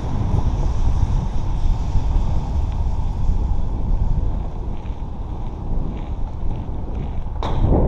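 Wind buffeting the microphone of a camera on a moving bicycle: a steady low rumble. A sudden, louder noise cuts in near the end and lasts under a second.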